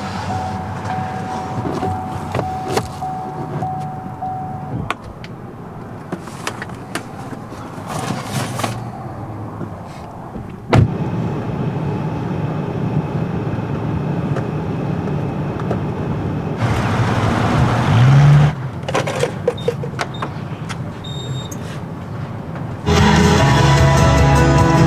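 Car noise with scattered clicks and knocks, including one sharp knock about halfway through. Background music comes in about two seconds before the end.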